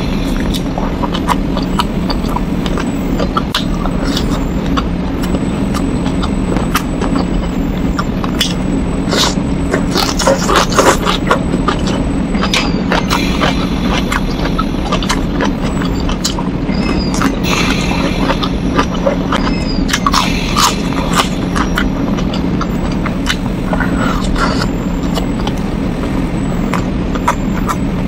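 Eating sounds of someone chewing shrimp and rice eaten by hand: mouth clicks and lip smacks that come in small clusters, over a steady low hum.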